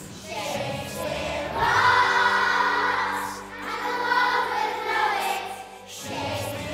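A choir of young children singing together in unison, with a brief break in the singing near the end before it picks up again.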